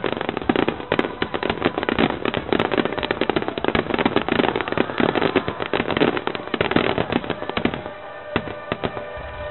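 A fireworks barrage: a dense run of bangs and crackling, many reports a second. It thins out about eight seconds in, and steady musical tones show through near the end.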